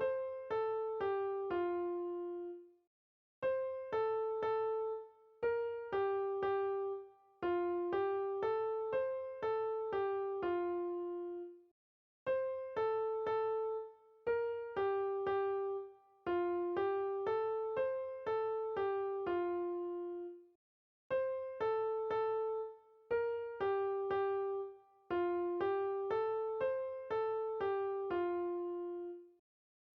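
Background music: a gentle keyboard melody of single struck notes in short repeated phrases, each phrase ending on a longer held low note, with brief silent gaps between phrases.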